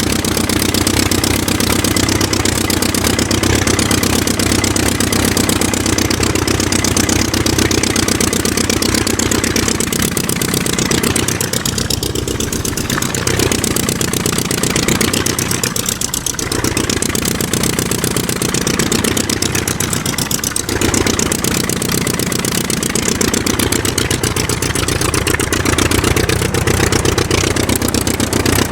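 Aircraft engine running continuously, its pitch wavering slowly, with three brief dips in the sound around the middle.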